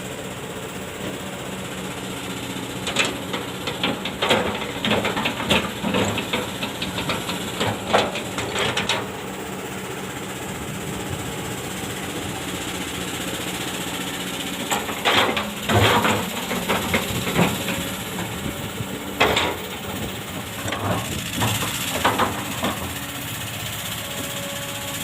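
Kobelco SK200 hydraulic excavator running steadily while it digs fine sand, with several clusters of knocks and clanks from the working machine.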